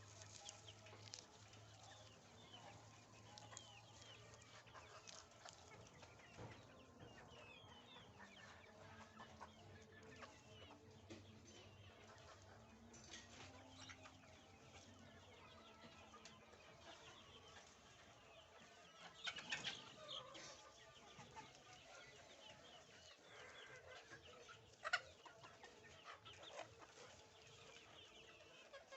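A flock of Fayoumi chickens clucking faintly, with a few louder calls about two-thirds of the way in and one sharp call near the end.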